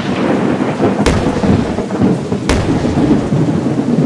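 Thunderstorm: a steady hiss of heavy rain with rumbling thunder, and two sharp thunder cracks about a second and a half apart.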